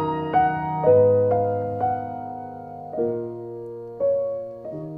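Grand piano played slowly and softly: about eight chords and notes struck over the span, each left ringing and fading, the last chord held. The phrase starts in minor and closes on a chord that turns away from it.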